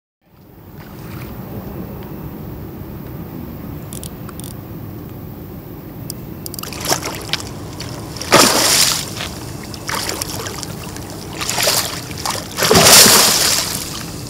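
A hooked carp thrashing at the water's surface as it is brought to the landing net: a few loud splashes in the second half, the biggest about eight and thirteen seconds in.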